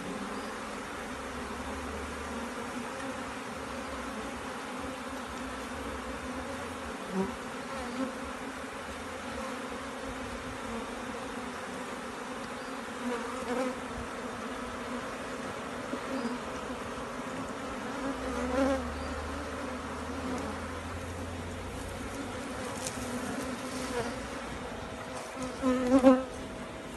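Honeybees buzzing steadily around an open hive box. Several louder swells come as bees fly close past, the loudest near the end.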